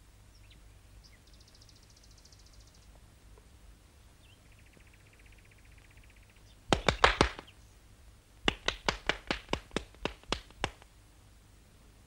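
Cartoon sound effects: two faint high buzzes, then about seven seconds in a quick cluster of sharp knocks, followed by a run of about a dozen rapid knocks, roughly five a second, that stops shortly before the end.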